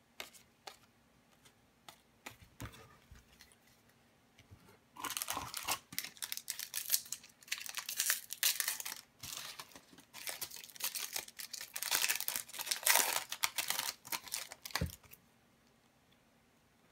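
A foil trading-card pack wrapper being torn open and crinkled. The crinkling starts about five seconds in and lasts about ten seconds. Before it come a few light clicks of cards being handled.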